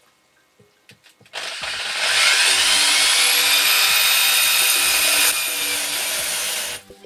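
Diamond core drill boring into the wall. The drill starts about a second and a half in with a whine that rises as it spins up, then runs loud and steady, eases a little around five seconds and cuts off near the end.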